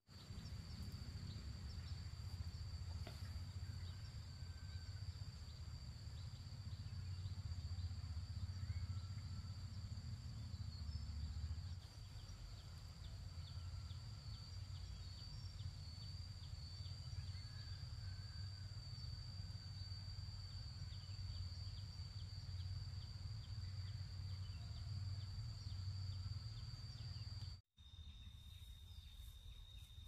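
Insects singing in a steady, high-pitched drone over a low rumble of wind on the microphone. The sound drops out for a moment near the end, then the drone returns slightly lower in pitch.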